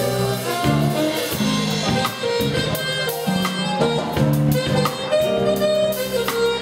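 Live band music: a saxophone plays a melody of held and moving notes over bass and a drum kit.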